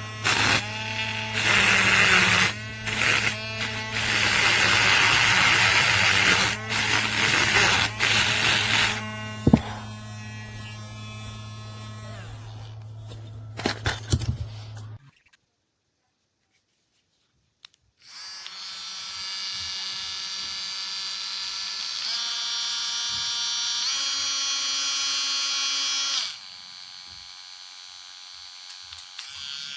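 Cordless mini rotary tool's small motor running. For the first several seconds a bit grinds against material in start-stop passages over a steady hum. After a short break the tool runs freely with a steady whine, its pitch stepping up twice as the speed setting is raised, then falling quieter near the end.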